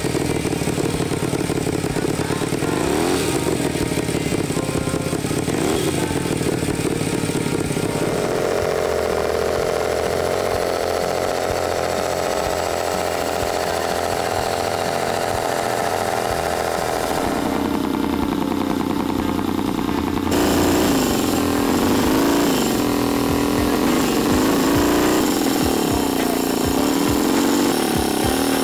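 Homemade V-twin engine converted from an air compressor running, revved up and back down several times as the throttle is worked.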